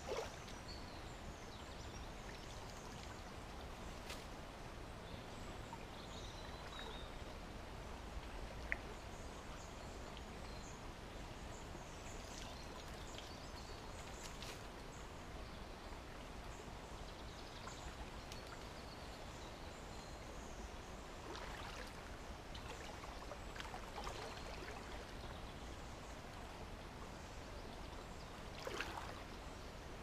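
Shallow brook water trickling and sloshing around a person wading in wellies and clearing a debris blockage, with a few splashes and knocks, more of them in the second half.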